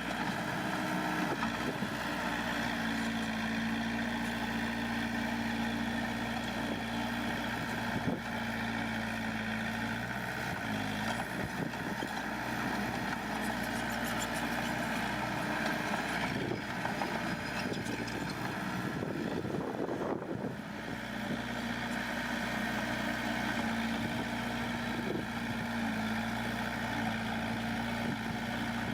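Diesel engine of heavy earthmoving machinery running steadily at an even pitch, with a short dip in level about two-thirds of the way through.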